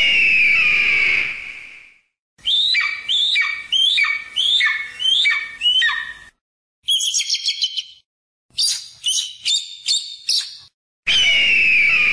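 Loud bird calls. A long, harsh scream opens, followed by a run of about eight falling whistled notes, then two bursts of quick, sharp high notes. The long scream comes again near the end.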